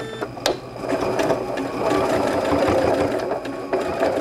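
Janome sewing machine stitching a fabric loop down onto an apron. A couple of clicks come first, then the machine runs steadily from about a second in, dipping briefly near the end.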